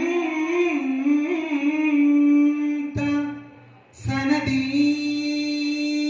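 A lone male voice singing Arabic devotional verse for arabana muttu through a microphone, holding two long ornamented notes with a short break about three seconds in. A few sharp strokes sound around the break.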